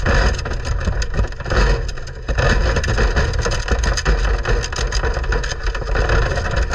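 Prairie dogs scrabbling about a wire-mesh cage close to the microphone: continuous crackling and scratching, with low bumps.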